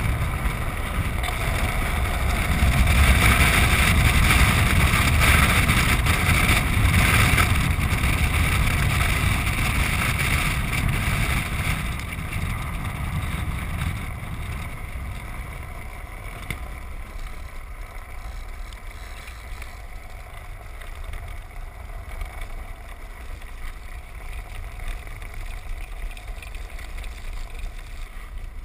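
A land yacht rolling across a dry lake bed under sail: a steady rush of wind on the microphone over a low rumble from the wheels. It is loudest in the first ten seconds or so, then eases off.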